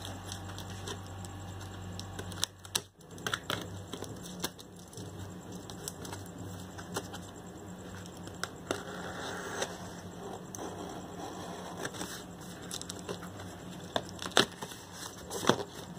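Sealed cardboard carton being cut and opened by hand: irregular scratchy clicks and crinkling of packing tape and cardboard, with a few sharper snaps near the end.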